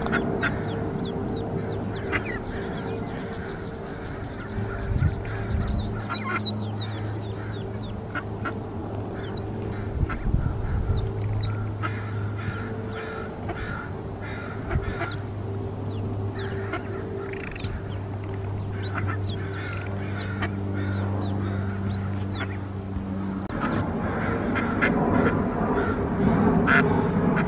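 A brood of mallard ducklings peeping, with many short, high calls overlapping, over a steady low hum. The sound grows louder and fuller near the end.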